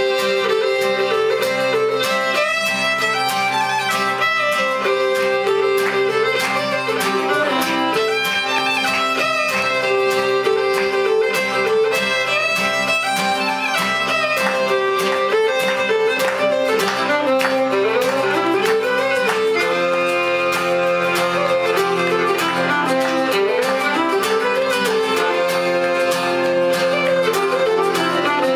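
Traditional folk band playing a tune together: two fiddles and tin whistles carrying the melody over acoustic guitar and accordion, with no break.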